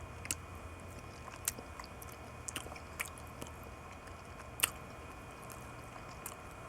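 Close-up mouth sounds of a person chewing hard-boiled egg with mayonnaise: scattered soft wet clicks and smacks about once a second, one louder a bit past the middle, over a low steady hum.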